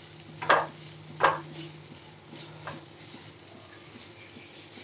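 Silicone spatula stirring and scraping chopped vegetables around a nonstick kadhai, with two louder strokes about half a second and a second and a quarter in, then fainter ones over a faint steady hum.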